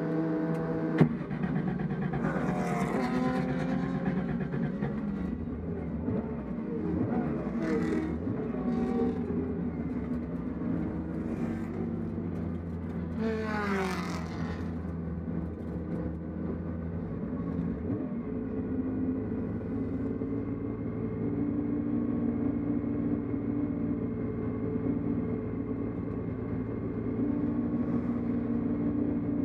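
A 1967 Porsche 911S's air-cooled flat-six idling steadily, heard from inside the cabin, with a sharp click about a second in. Other race cars rush past several times, the loudest about fourteen seconds in, their pitch dropping as they go by.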